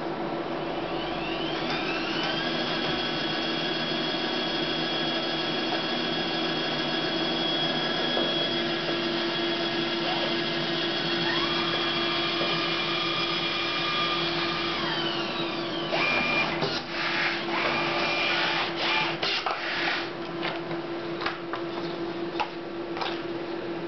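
Memjet SpeedStar3000 inkjet label printer running a print job over a steady hum. Its motor whine rises in pitch about a second and a half in, holds steady, and winds down after about fifteen seconds. A rapid, irregular run of clicks and clatter follows.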